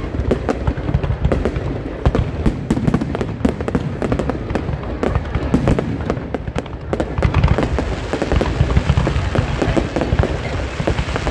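Aerial fireworks display: a dense, continuous barrage of bangs and crackles over a low rumble, easing briefly just past halfway, then building again.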